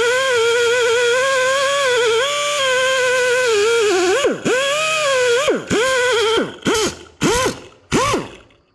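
Handheld electric grinder dressing down rough factory spot welds on car body sheet metal. A steady whine wavers in pitch as the tool bears on the metal for about four seconds, then comes a string of short bursts as it is switched on and off, each spinning up and winding down.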